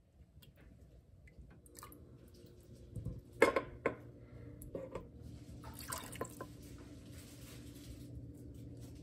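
Metal tongs and a ladle clinking against a stainless steel pot as broth drips and splashes. The sharpest clinks come about three and a half seconds in, with a few lighter ones later.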